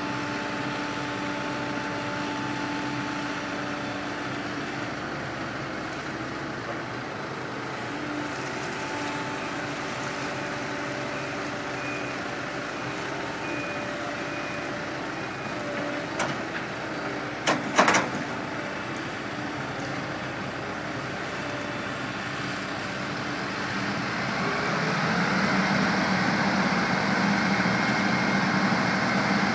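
Diesel engines of a concrete mixer truck and a Hitachi 130 tracked excavator running steadily, growing louder about four-fifths of the way through as an engine speeds up. A few sharp knocks come a little past halfway.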